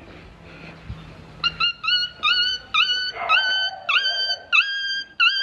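A run of nearly identical high-pitched yelping calls, about two a second, starting around one and a half seconds in. Each call dips sharply in pitch and then holds level. Their sameness fits an animal-sound prank effect being played back rather than a live animal.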